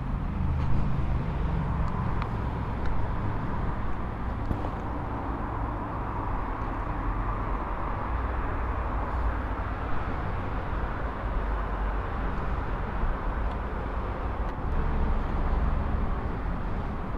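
Steady low rumble of road vehicles, with a few faint clicks.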